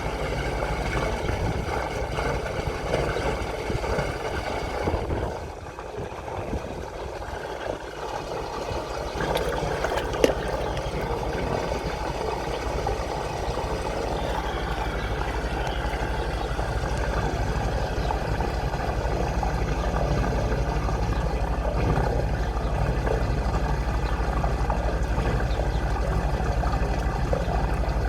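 High-pressure drain-jetting machine's engine running steadily under water rushing and gurgling through the drain. The noise dips briefly about five seconds in, and there is a single sharp knock about ten seconds in.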